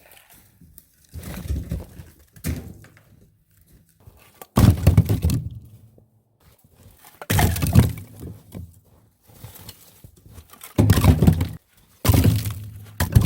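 Firewood rounds being tossed into a trailer, each landing with a heavy wooden thunk and clatter; six landings, irregularly spaced one to three seconds apart.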